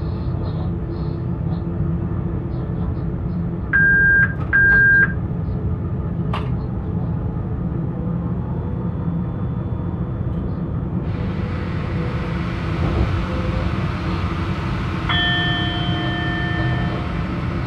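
Steady running rumble of a BR 186 electric locomotive under way, heard from inside its cab, with two short electronic beeps about four seconds in. About eleven seconds in the running noise turns hissier, and near the end a steady tone sounds for about two seconds.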